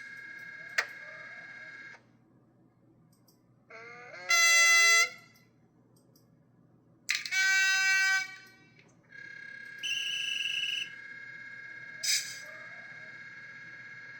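Sound functions of the Piko Smart Decoder played through the small speaker of an HO Class 442 Talent 2 EMU model: a steady electric whine that stops about two seconds in, then two horn blasts of about a second each, a short high beep tone, and the whine coming back, with a sharp click at each end.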